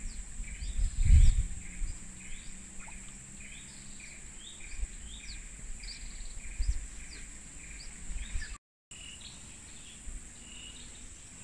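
Tropical forest ambience: a steady high insect drone under short rising chirps that repeat about twice a second. A low rumble about a second in, and the sound drops out for a moment near the end.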